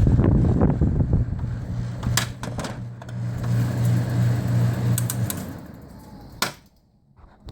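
GE Fashionaire 8,000 BTU window air conditioner running, its compressor giving a strong steady hum with some rattling clicks; the owner hears it vibrating quite a bit and says the compressor doesn't sound that good. The hum stops about five seconds in, the sound dies away, and a sharp click follows.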